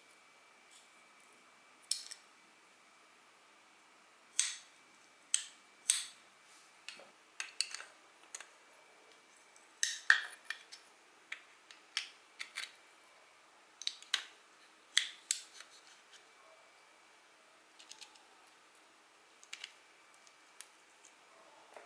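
Small metal parts and tools of a spinning reel being handled during disassembly: irregular sharp clicks and light metallic clinks, scattered through, with the loudest clink about halfway.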